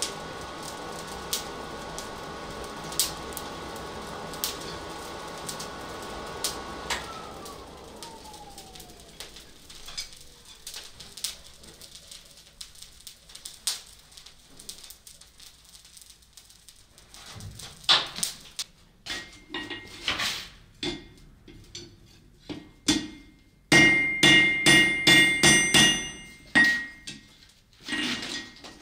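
Coal forge fire blown by a steady-running blower, crackling and spitting sparks; about seven seconds in the blower is switched off and winds down, its pitch sliding away. After a few knocks of tongs and metal, a hammer strikes the red-hot iron on the anvil, with a fast run of ringing blows near the end.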